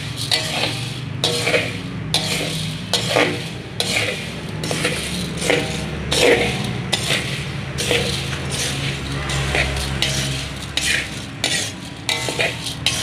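Coffee beans being hand-roasted in a pan, stirred and turned over and over with a spatula: a rhythmic scrape and rattle of beans against the pan, about three strokes every two seconds, over a low steady hum.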